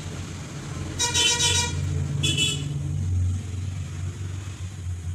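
Two short toots of a vehicle horn, about a second in and again a second later, over a steady low hum.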